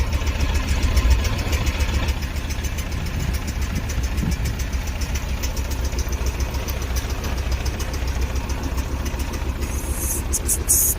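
Sany SY35U mini excavator's diesel engine running steadily.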